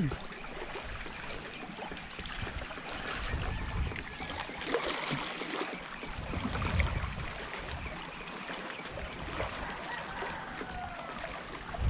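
Water flowing and lapping, with low gusts of wind rumbling on the microphone and a faint, regular high ticking.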